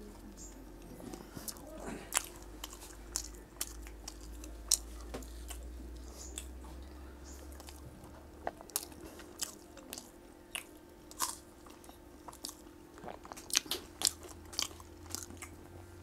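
People biting into and chewing singaras (fried Bengali samosas), the crisp fried pastry crunching in frequent, irregular crackles.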